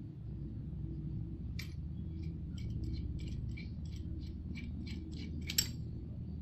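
A series of about a dozen short, sharp clicks over a few seconds, the last one the loudest, over a steady low hum.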